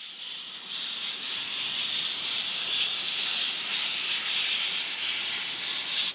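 Steam hissing steadily from the Jubilee Class steam locomotive 45596 "Bahamas", a loud, even, high hiss with no chuffing rhythm; it builds in the first second and cuts off suddenly near the end.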